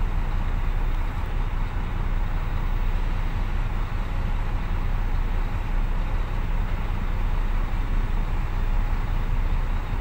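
Heavy diesel engines running steadily, heard from inside a truck cab: an even, low rumble that does not change.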